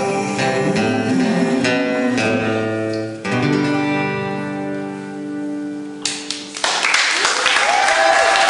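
Acoustic guitar playing, ending on a long held final chord; about three-quarters of the way through, an audience starts applauding.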